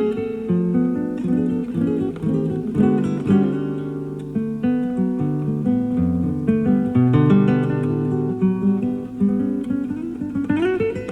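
Classical guitar played live: plucked notes and chords in a continuous passage, with a quick upward run near the end. It is an FM radio broadcast recorded on cassette tape, with a dull top end.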